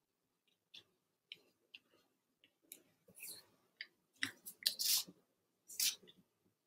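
Faint scattered clicks and short rustles of thin cardboard cereal-box cutouts being handled and pressed down onto a collage, with a squeeze bottle of liquid glue. A cluster of louder rustles comes about four to five seconds in, and another shortly before the end.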